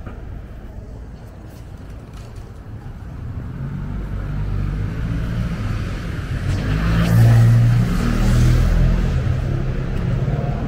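A motor vehicle engine running close by on the street, its low rumble building from about three seconds in and loudest near the end.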